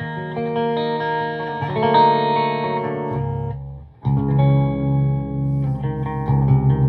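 Electric guitar (Jackson DKM2 with Seymour Duncan JB pickups) played through a PRS MT-15 V2 amp head into a 1x12 cabinet with a Celestion Vintage 30, miked in the room. Notes and chords ring out and die away briefly a little past three seconds. About four seconds in, a low riff with a fast, even pulse starts.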